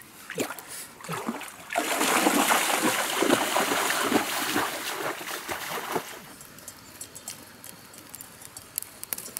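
Water splashing and sloshing in a shallow stream as a person wades and thrashes through it, loud for about four seconds from near two seconds in. It then drops to faint scattered ticks.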